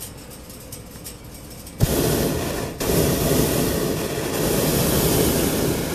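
Hot-air balloon's propane burner firing: a sudden loud rushing blast about two seconds in, broken once for a moment a second later, then held steady for about three more seconds.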